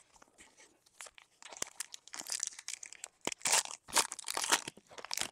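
Plastic wrapper of a trading-card pack being torn open and crinkled, with crackling that grows louder and busier in the second half.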